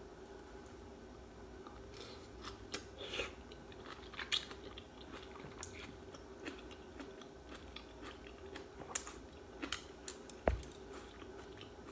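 Quiet eating sounds of a person chewing soup vegetables, with scattered soft clicks and one sharper knock about ten and a half seconds in.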